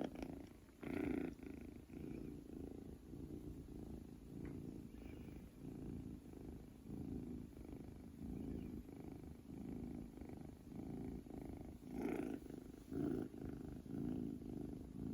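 Munchkin kitten purring, a low flutter that swells and fades about once a second with each breath, as he purrs on waking from sleep.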